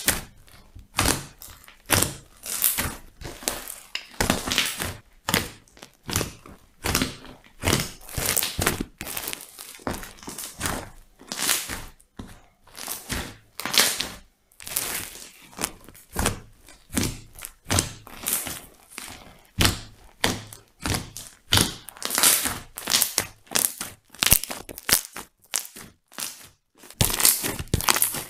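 Hands squeezing and kneading a giant fluffy slime made from glue and a great deal of shaving foam. The air trapped inside pops and crackles in repeated crunchy bursts, about one to two a second.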